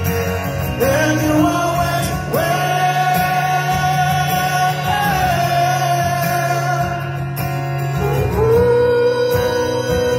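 Live rock ballad with guitar accompaniment and a male singer holding long sung notes: one from about two seconds in, then a lower one from about eight and a half seconds in, recorded from within the concert crowd.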